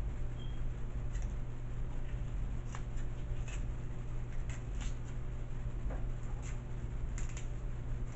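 Small kitchen shears snipping and cracking through crab leg shell: a scattering of short, sharp clicks, most of them in the second half, over a steady low hum.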